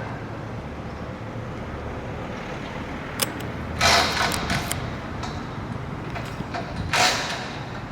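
Railway station ambience around a standing train: a steady low rumble, with a sharp click about three seconds in and two short hissing bursts, one just before the middle and one near the end.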